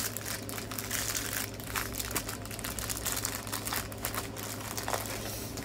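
Clear plastic packaging bag crinkling in irregular crackles as a diamond painting canvas is handled inside it.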